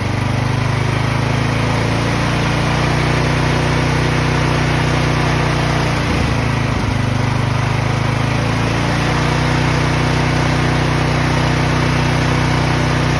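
Briggs & Stratton Storm Responder portable generator engine running steadily on propane while its fuel mixture is adjusted by hand, going from rough-running to smooth. There is a brief waver in the running about six seconds in.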